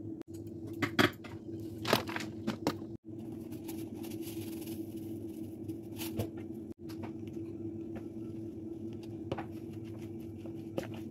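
Kitchen handling noises: a few sharp clicks and knocks of plastic kitchenware in the first few seconds and a few more later, with some rustling of sliced shallots in a plastic bowl, over a steady low hum.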